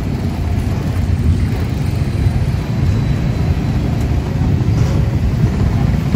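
Steady low rumble of street traffic, without a break.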